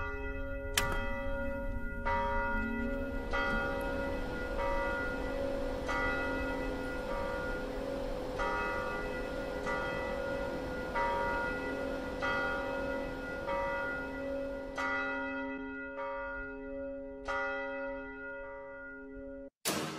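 Church bell tolling: a steady stroke about every second and a quarter, each ring hanging on under the next. A low rumble runs beneath, and the sound cuts off suddenly just before the end.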